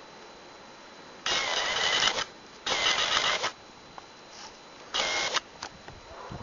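Camcorder's zoom motor whirring in three short runs, the first two just under a second each and the last about half as long, each starting and stopping abruptly.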